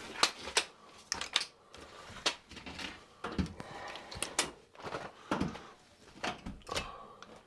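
Telescoping aluminium ladder being pulled out section by section: metal tubes sliding and a string of sharp clicks as the rungs extend and lock into place.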